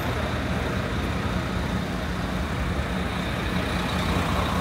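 City street traffic with a heavy vehicle's engine running close by: a steady low rumble under the general road noise.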